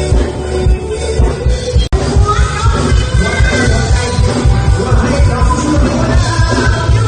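Recorded music with a strong bass beat played through a mini stage sound system being tried out. It drops out for an instant about two seconds in, then carries on with a singing voice over the beat.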